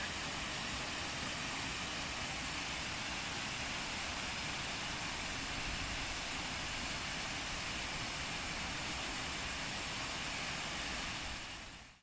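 Waterfall plunging into a pool: a steady rush of falling water that fades out over the last second.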